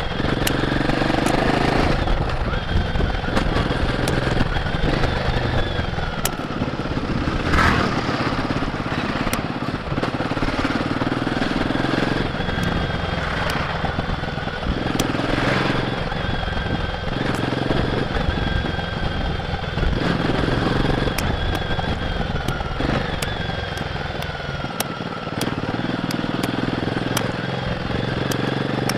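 Royal Enfield Guerrilla 450's 452 cc single-cylinder engine running through its stock exhaust while riding along, engine speed easing and rising with the throttle. Two short rushes of noise come about a quarter and about halfway through.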